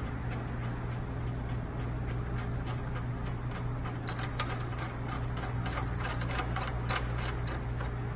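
Small sharp clicks and ratcheting ticks from mounting plates being fastened by hand to a sign cabinet, coming faster and closer together about halfway through, over a steady low hum.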